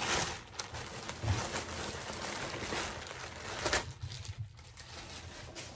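Thin clear plastic bag crinkling and rustling as a large plush toy is pulled out of it. The crinkling eases off after about four seconds.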